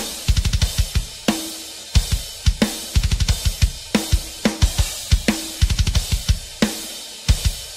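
Background music with a fast, driving drum-kit beat: kick drum, snare and cymbals in a steady repeating pattern.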